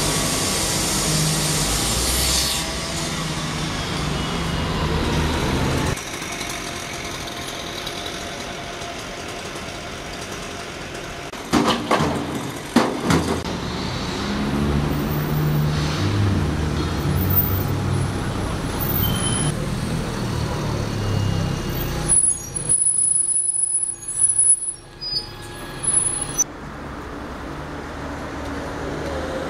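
City road traffic with double-decker buses passing, their engines running, and a few loud short noises around the middle and again later on. The sound changes abruptly several times.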